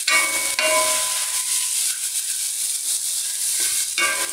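Fried rice sizzling with a steady hiss in a non-stick wok as a wooden spatula stirs and tosses it. A few brief squeaky scrapes of the spatula on the pan come at the start, about half a second in, and near the end.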